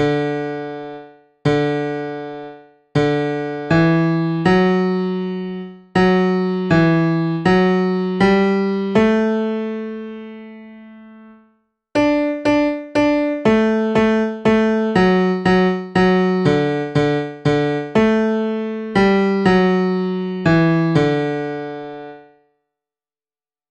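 Piano-like keyboard playing a simple melody of single struck notes, each dying away. A slower phrase ends on a long held note, then after a short pause a quicker phrase of about fifteen notes follows.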